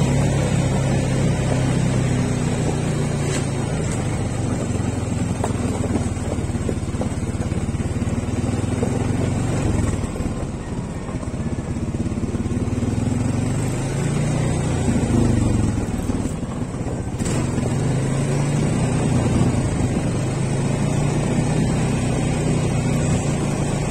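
ATV engine running steadily under way. Its note eases off for a few seconds near the middle, then picks up again.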